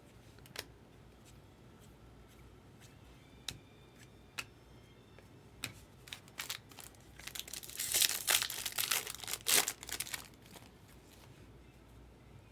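Scattered light clicks and taps, then about seven seconds in a few seconds of loud crinkling and tearing: a foil trading-card pack wrapper being torn open and crumpled.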